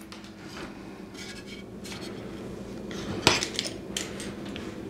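Metal clamps clinking and knocking against each other as they are handled, with a sharp clink a little over three seconds in. A steady low hum runs underneath.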